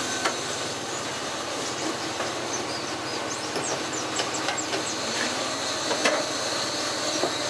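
Clicks and knocks of a CRT television's chassis board being handled and slid out of its plastic cabinet, over a steady background hiss.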